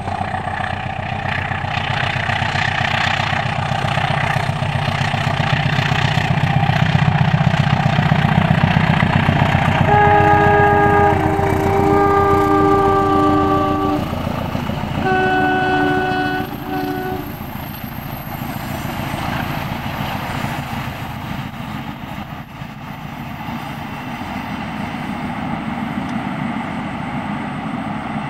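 Diesel-hauled passenger train passing with a steady rumble that builds over the first ten seconds. Its locomotive's multi-note air horn then sounds four blasts: the second is the longest and the last is a brief toot. The rumble then fades as the train goes by.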